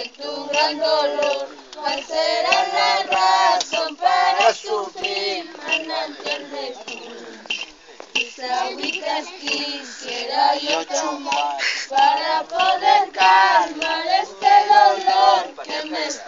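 A group of women singing a hualina, a traditional Andean festival song, in high voices, unaccompanied, phrase after phrase with short breaths between.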